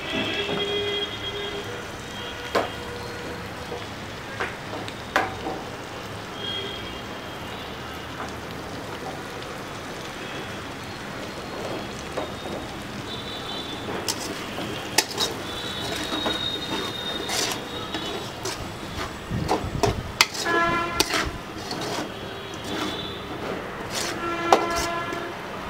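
Metal spatula scraping and clinking against an aluminium wok while stirring shallots and garlic frying in oil, over a steady sizzle. Only a few clinks at first; from about halfway on the scrapes and clinks come often, some of them squealing against the metal.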